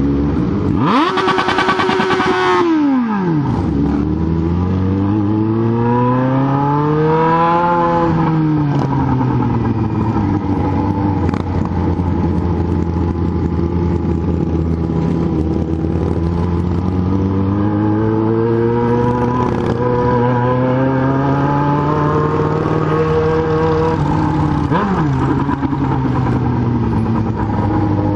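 Yamaha XJ6 N's 600 cc inline-four engine running on the move. It is revved hard and held briefly near the start, then drops off steeply, and after that it speeds up and eases off several times.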